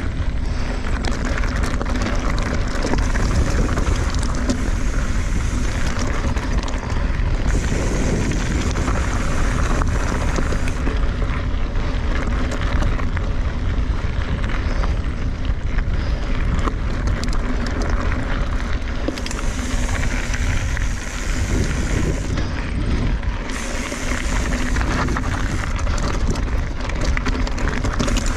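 A Kona Honzo hardtail mountain bike ridden down a rocky dirt singletrack. Knobby tyres crunch over gravel, the chain and bike rattle with a steady clatter of small clicks, and wind buffets the chest-mounted camera's microphone.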